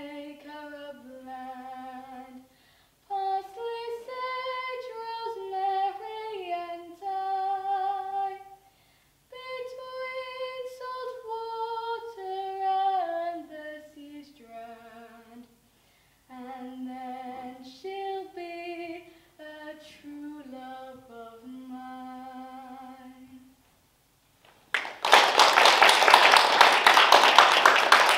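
A schoolgirl's solo voice sings a slow, unaccompanied melody in phrases separated by short breaths. About 25 seconds in, audience applause breaks out as the song ends; it is louder than the singing.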